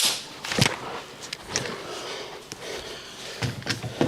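A few short, irregular knocks and rustles, with a cluster of them near the end.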